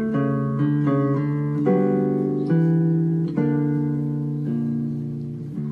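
Background music: acoustic guitar playing picked chords that change every second or so.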